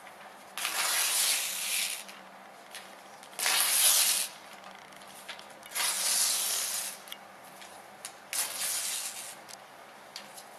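Sheets of paper being torn slowly close to a microphone: four tears of about a second each, with faint paper rustles and clicks between.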